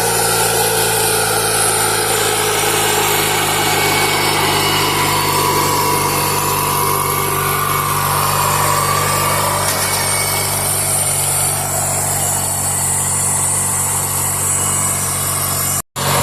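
Murray lawn mower's small gasoline engine running steadily, after a new carburetor was fitted and the water that had hydro-locked it was drained. It cuts out abruptly near the end.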